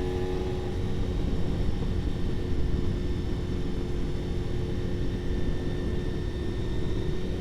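Honda RVF400 (NC35) V4 engine running at steady cruising revs, holding a nearly constant pitch, under a heavy rush of wind noise.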